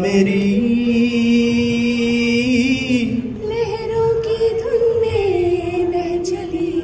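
Singing in long held notes over microphones, the pitch sliding from one note to the next and then holding.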